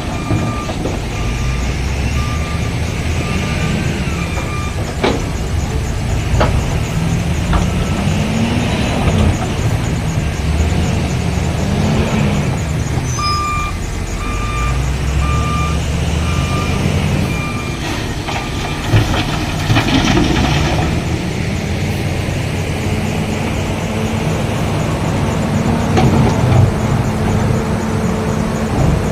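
Heavy diesel engine of earth-moving machinery working under load, its pitch rising and falling every few seconds. An intermittent pulsed warning beep sounds twice, for a few seconds each time. There are a few sharp knocks.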